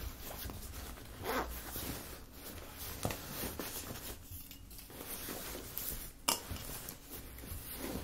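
Rummaging through a handbag: rustling and handling noise with small clicks and knocks of things inside, and one sharper click about six seconds in.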